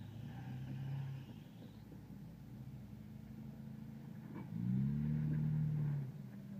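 Chevrolet Tracker 4x4's engine running at low revs as it crawls over rocks, then revving up louder for about a second and a half from about four and a half seconds in before easing off again.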